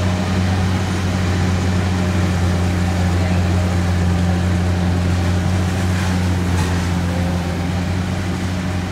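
Kubota DC70 combine harvester's diesel engine running steadily under load with a constant low hum, its threshing machinery adding an even rushing noise.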